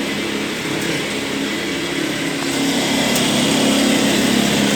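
Small engine running steadily, a little louder in the second half, just after a repair.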